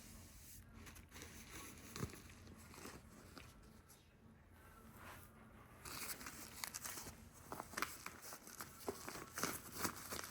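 Faint handling of packaging: a few light clicks and taps, then denser crinkling and rustling from about halfway through, as a fragrance box and its wrapping are handled.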